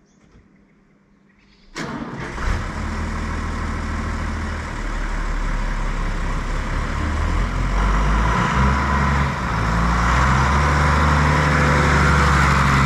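John Deere tractor's diesel engine coming in suddenly about two seconds in, then running as the tractor pulls away and drives up close, getting louder as it nears.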